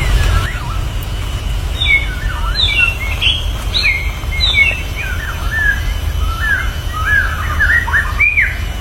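White-rumped shama (murai batu) singing a run of varied whistled phrases, with quick rising and falling notes, starting about two seconds in and getting busier near the end. Underneath are a steady thin high tone and a low rumble.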